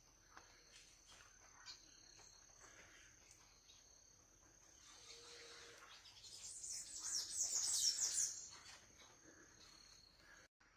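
Outdoor insect and bird ambience: a steady high-pitched insect trill with scattered short bird chirps. About six seconds in, a much louder, rapid, high-pitched trill rises for two to three seconds and then fades. The sound cuts out briefly near the end.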